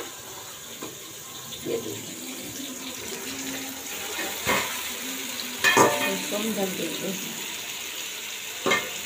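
Raw mutton liver going into tomatoes frying in oil in a steel pot: a steady sizzle, with a few sharp metal clinks of a spatula against the pot.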